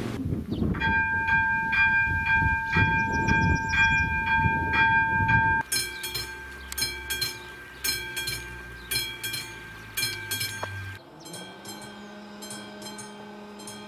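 Level crossing warning bells ringing at a steady beat of about two strokes a second, with a train rumbling over the crossing in the first half. The sound changes abruptly twice to other crossings' bells, the last one fainter.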